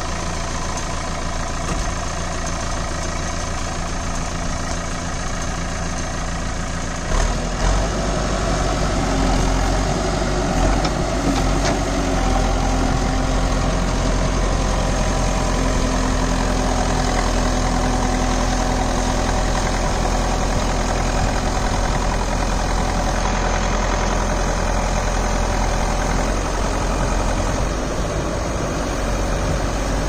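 Manitou TLB-740S backhoe loader's four-cylinder turbocharged Kirloskar diesel engine idling, then revving up about seven seconds in. It runs louder and steadily under hydraulic load while the loader bucket and backhoe boom push the machine up off the ground.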